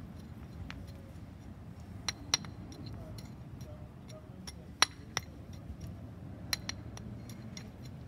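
Sharp stone clinks as a paving hammer taps small square paving stones into place and the stones knock against one another, setting Portuguese mosaic pavement (calçada) by hand. The clinks come at irregular intervals, the loudest a little before and just after the middle.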